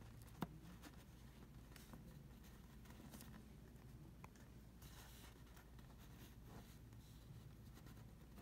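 Near silence with faint rustling and scraping as fingers turn a rough tanzanite crystal over on a sheet of paper, and one sharp tick about half a second in.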